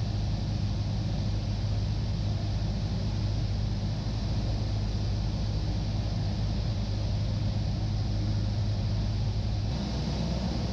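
Cessna 172's piston engine and propeller droning steadily in flight, with a low hum and a hiss of airflow; the low hum shifts near the end.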